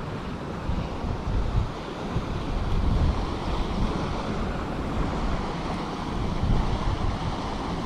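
Wind buffeting the microphone: a steady rushing noise with an uneven low rumble that swells and drops.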